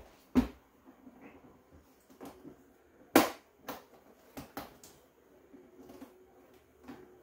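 Knocks and clicks of hard 3D-printed PETG plastic hive parts being handled: two sharp knocks, about half a second and three seconds in, followed by several lighter taps.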